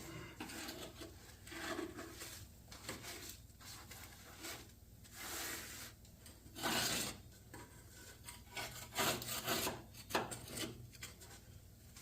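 Irregular scraping and rubbing strokes, as caked grime of sand and possibly blacktop is worked loose. The strokes come unevenly, with the loudest about seven seconds in and another cluster around nine to ten seconds.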